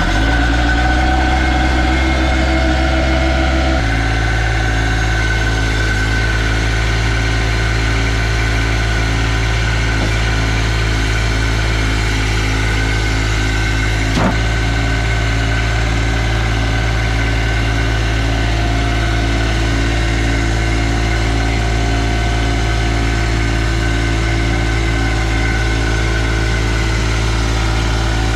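An engine catches and runs, at first a little fast, then settles about four seconds in to a steady, even idle.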